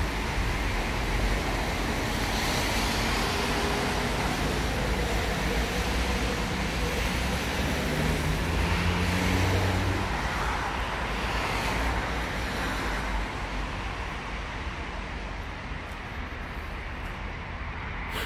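City street traffic: cars and other motor vehicles driving past, with one vehicle's engine hum loudest about halfway through. The traffic grows quieter in the last few seconds.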